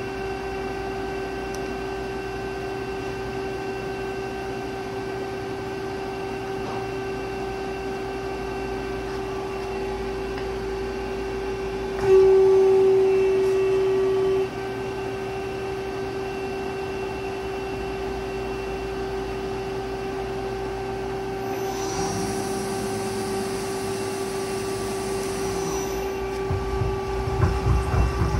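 A CNC turning center under power gives a steady mechanical hum with a constant whine. The whine is louder for about two seconds in the middle. Later a high hiss runs for about four seconds, and a few low thumps come near the end.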